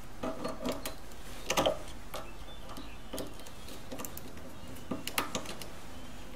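Scattered light clicks and taps of a screwdriver and metal hose clamp being worked onto an air filter's intake adapter, with a louder cluster of taps about a second and a half in and again near five seconds.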